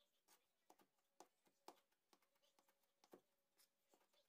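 Very faint, irregular taps of a kitchen knife chopping fresh parsley on a plastic cutting board, over a faint steady hum.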